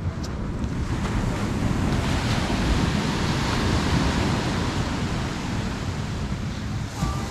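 Surf washing onto a sandy beach in a steady, continuous rush, with wind rumbling on the microphone.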